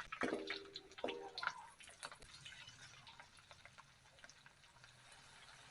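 Irregular drips and small clicks of water, thinning out after about two seconds.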